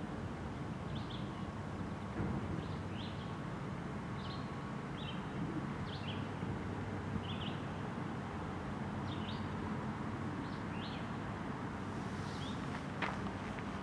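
Loaded trash-container freight train rolling past at steady speed: a continuous low rumble of the cars on the rails. A bird chirps briefly about once a second over it, and there is a single sharp click near the end.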